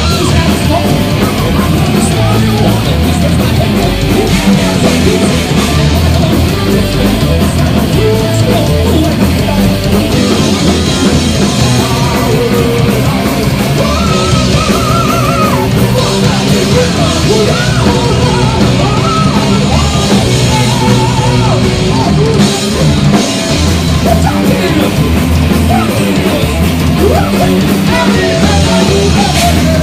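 Heavy metal band playing live and loud: a full rock band with a drum kit.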